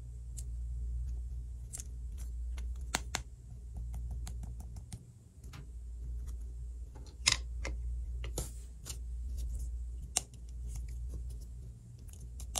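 Light, scattered clicks and taps of fingers handling a small plastic tray, over a faint steady low hum.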